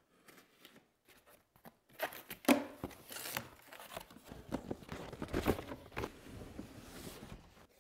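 Cardboard packaging being handled: faint scraping as a box cutter slits the packing tape, then from about two seconds in, cardboard flaps rustling, scraping and knocking as the box is pulled open and the outer carton is slid off the inner box.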